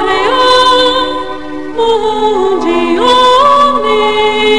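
Music with voices singing long held notes, moving to a new pitch about every second with short glides between notes.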